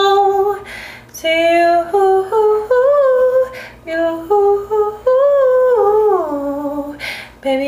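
A young woman humming a wordless, sliding melody a cappella, in several phrases with short breaks between them.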